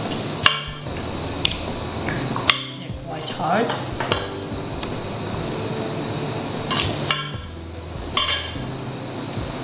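Kitchen knife cutting through a hard raw sweet potato and knocking on the chopping board: about half a dozen separate knocks at uneven intervals, some ringing briefly.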